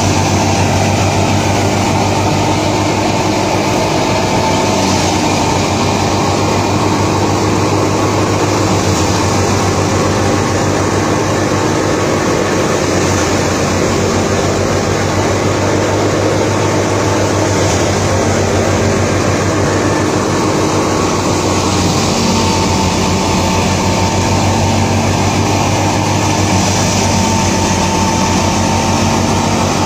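Wheat thresher machine running steadily: a loud, constant mechanical drone with a steady hum.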